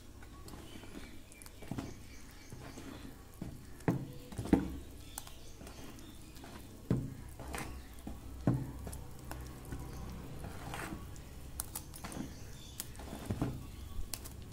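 Steel spoon stirring ground greens paste into thick idli batter in a bowl, with irregular light knocks and scrapes of the spoon against the bowl.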